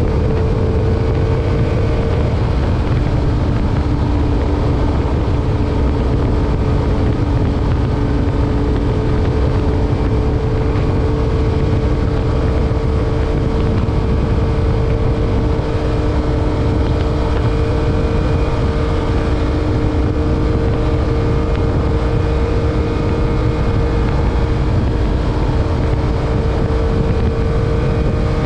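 A 2021 Yamaha MT-09's 890 cc inline three-cylinder engine running at a steady cruise, its note rising slowly. Heavy wind rush buffets the microphone over it.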